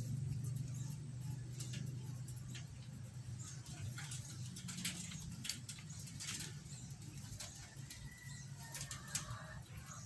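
Aviary birds: a low cooing with many short, sharp, high chirps and clicks scattered over it.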